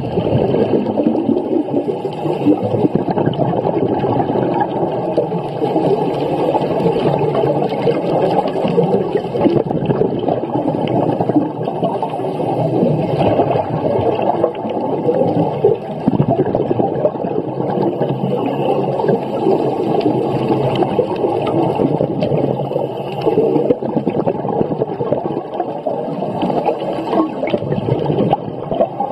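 Steady underwater water noise: a dense bubbling and gurgling with fine crackle, sitting low in pitch and holding level throughout.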